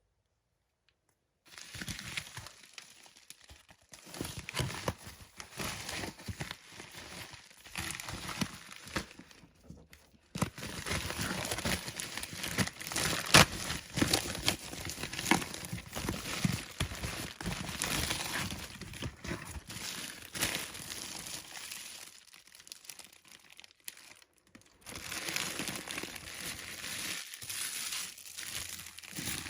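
Packaging being handled and unwrapped: irregular crinkling and rustling with sharp crackles, starting after a short silence and pausing briefly twice.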